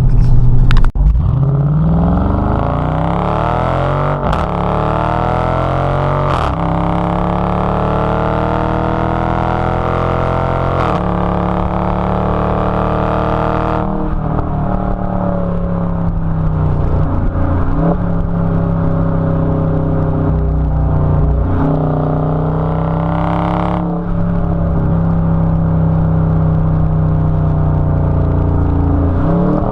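Dodge 5.7 L Hemi V8 exhaust under hard acceleration while driving, the engine note climbing and then dropping back several times as it pulls through the gears.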